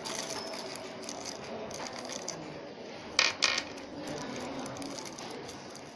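Small hard parts of a vape starter kit being handled, with light rattling and clicking and two sharp clinks in quick succession about three seconds in.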